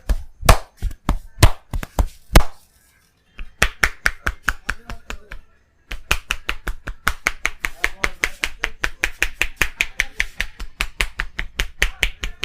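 Hand-chopping percussion of a head massage, the edges of the hands striking the head. It starts with a few loud single strokes about half a second apart, then after two short breaks settles into a fast, even rhythm of about five or six strokes a second.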